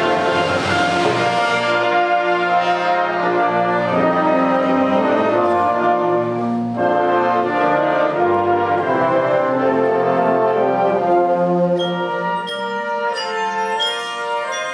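Concert band playing full sustained brass chords, with a cymbal crash at the start. About twelve seconds in the band drops back and short, high bell-like notes ring out over it.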